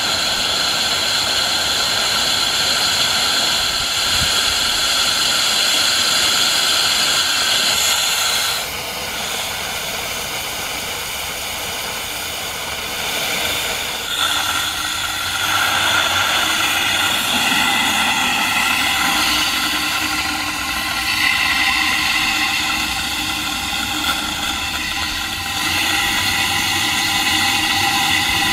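Atlas automatic stationary steam engine running, with steam hissing loudly out around its cylinder in a steady, whistling hiss. The hiss drops a little and changes pitch about a third of the way in, then shifts again about halfway through and near the end.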